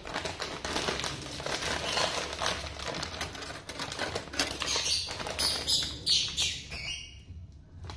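Metallised plastic chip bag of Herr's Carolina Reaper chips crinkling as it is handled and pulled open. A dense run of crackles breaks into separate bursts after about five seconds and thins out near the end.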